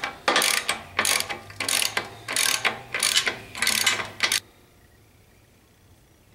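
Socket ratchet wrench turning a bolt on the mower gearbox: a run of short ratcheting clicks, about one and a half strokes a second, that stops suddenly a little past four seconds in.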